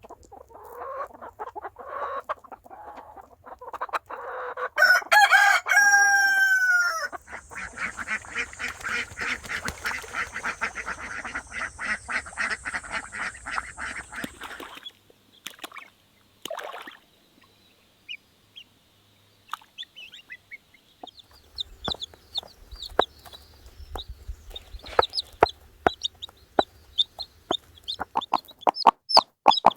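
Chickens clucking, with a rooster crowing loudly about five seconds in, then a long run of rapid calls and short sharp chirps.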